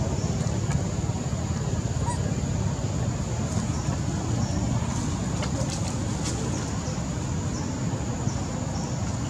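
Steady low rumbling outdoor background noise, with a thin high steady tone above it and a few faint ticks about midway.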